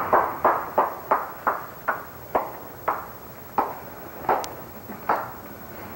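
One person clapping slowly, about a dozen claps that gradually draw further apart: a mocking slow clap.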